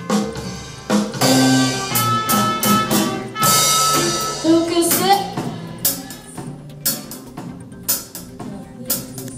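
A live band playing: a drum kit with irregular hits and cymbal crashes under held pitched instrument notes, one of which bends upward about halfway through.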